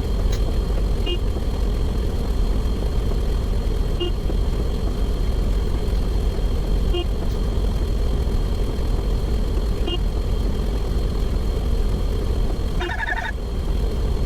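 Steady low rumble with a short, high blip about every three seconds. Near the end comes a brief burst of several higher tones together, like a horn or chime.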